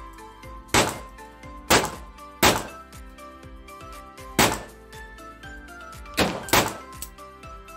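Hämmerli X-Esse .22LR pistol firing three sharp shots about a second apart. Three more sharp knocks follow later, the last two close together, while the pistol is being handled. Background music plays throughout.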